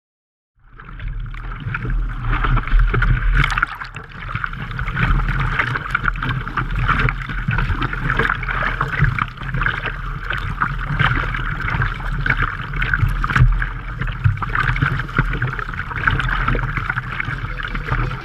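Water sloshing and splashing around a camera at water level on the nose of a board, over a low steady hum. It starts abruptly about half a second in.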